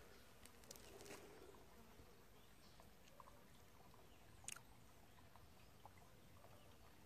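Near silence: faint outdoor background with a few soft, scattered clicks, one sharper click about four and a half seconds in.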